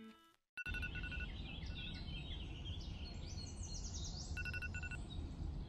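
Music fades out, and after a brief silence an outdoor ambience sets in: birds chirping and singing over a steady low rumble. It includes two bursts of quick repeated high pips, about a second in and again near the end.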